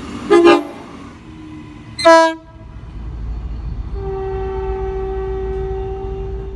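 Train horn sounding two short, loud blasts, then a long steady blast held for about three seconds, over the low rumble of the passing train.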